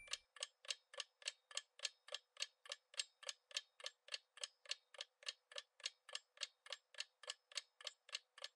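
Clock-ticking sound effect counting down the time to answer a quiz question: steady, even ticks, about three and a half a second.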